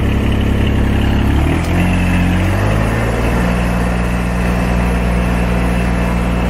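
Mini excavator's 14 HP water-cooled Yanmar diesel engine running steadily and loud. Its note shifts lower about a second and a half in, then holds.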